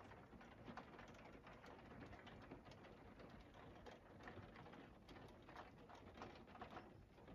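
Near silence, with a faint patter of rain.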